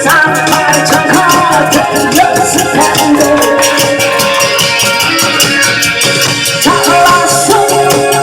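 Upbeat music with a fast, steady rattling percussion beat under a melody.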